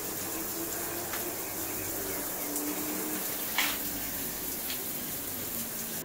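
Water running from two overhead rain-style shower heads and splashing down, a steady spray. A single light click sounds about three and a half seconds in.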